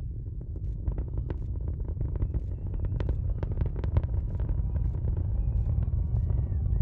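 Space Shuttle Discovery's rocket launch rumble heard from across the water: a deep rumble with sharp crackles, growing steadily louder.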